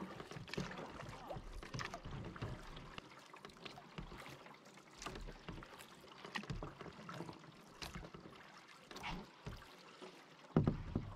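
Canoe being paddled through calm water: soft, irregular paddle splashes and drips, with a louder bump near the end.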